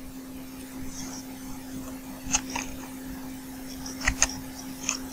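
Quiet room tone: a steady low hum, with a few soft clicks about two seconds in and again near the end.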